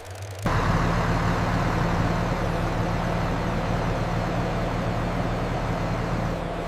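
A motor vehicle's engine running steadily, cutting in suddenly about half a second in.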